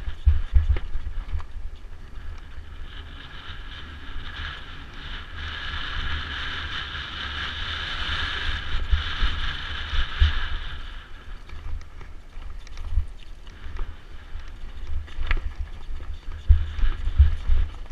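Mountain bike riding fast down a rocky singletrack, heard from a camera on the bike or rider: wind buffeting and a stream of knocks and rattles as the bike jolts over stones. A steady higher whir builds a few seconds in and fades again near the two-thirds mark.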